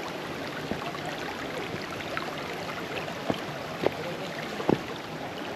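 Brook water running steadily over stones, with four short sharp knocks or splashes standing out over the rush, the loudest near the end.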